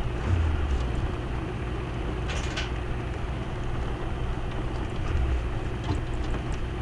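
Steady low rumbling background noise, with a brief clatter about two and a half seconds in.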